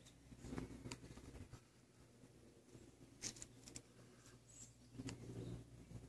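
Near silence: faint outdoor ambience with a low hum and a few soft, scattered clicks and rustles.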